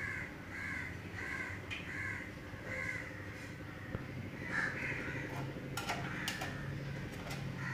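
A bird calling: a run of about five short calls roughly 0.7 s apart, then another a couple of seconds later. A few clicks around two-thirds of the way through as the metal case of a computer power supply is handled.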